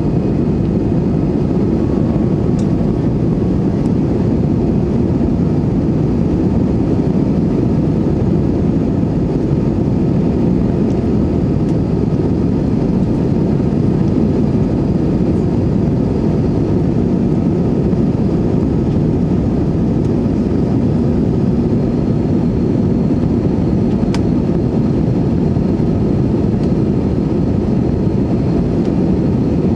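Steady cabin noise of an Airbus A320-216 in flight, heard from a window seat by the wing: an even, low drone from its CFM56 engines and the airflow over the fuselage.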